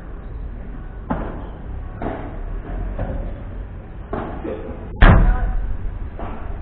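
Padel rally: sharp hits of the ball off rackets and court about once a second, with one much louder heavy bang about five seconds in.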